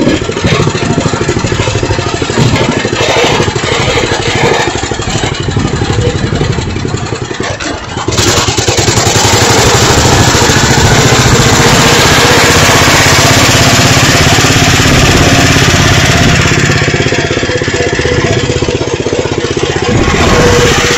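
Engine of a small open vehicle running as it is ridden along, with steady firing pulses. About eight seconds in it gets louder, with a broad rush of noise.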